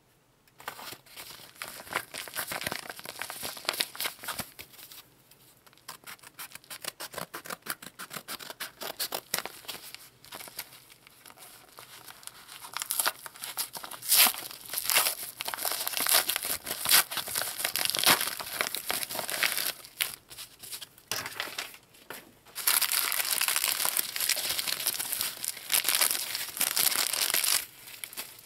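Plastic parcel packaging crinkling and tearing as a crumpled yellow parcel is pulled open by hand, in irregular bursts of crackles. About three-quarters of the way through the rustling turns steady and continuous for several seconds.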